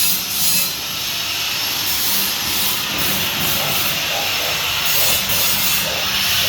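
Jasic LS 15000F handheld laser welding machine running: a loud, steady rushing hiss, its high hiss coming and going in short spells.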